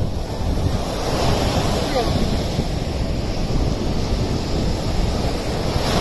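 Sea surf washing steadily, with wind rumbling on the microphone.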